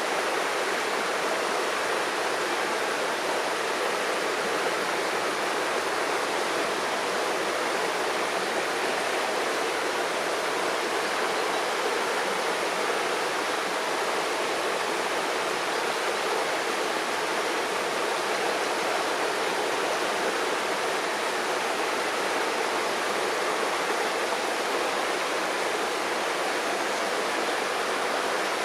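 River water rushing and splashing over stones in a steady, unbroken stream.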